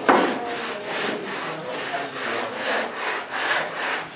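Hand sanding the edge of a pink rigid foam insulation board: quick back-and-forth scraping strokes, about three a second, with a louder stroke at the start.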